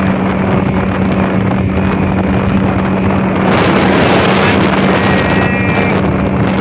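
Speedboat engine running steadily at speed, with a steady low hum under the rush of water and wind; the rush swells louder for about a second near the middle.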